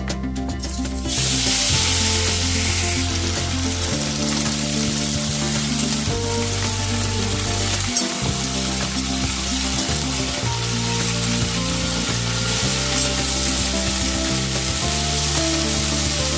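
Chopped bottle-gourd stems, potato, pointed gourd and long beans dropped into hot oil in a karahi: the oil starts sizzling suddenly about a second in and keeps sizzling steadily while a metal spatula stirs the vegetables.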